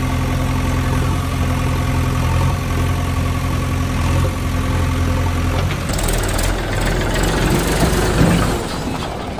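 Diesel engine idling steadily, a low even hum. About six seconds in the hum cuts off and gives way to a rougher, noisier rumble.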